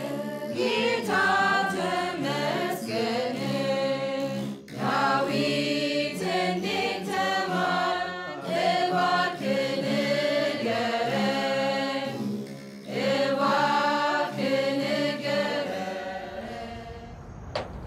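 Ethiopian Orthodox chanting sung in long, gliding phrases over plucked begena lyres, the ten-stringed lyre of Orthodox prayer. The singing breaks briefly twice and fades out near the end.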